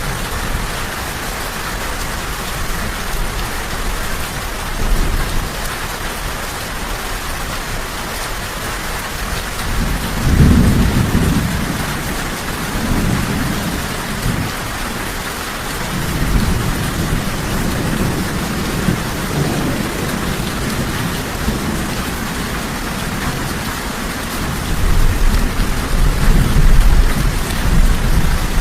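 Steady rain pattering, with rolls of thunder rumbling underneath. A strong roll comes about ten seconds in, more rumbling follows through the middle, and a louder roll comes near the end.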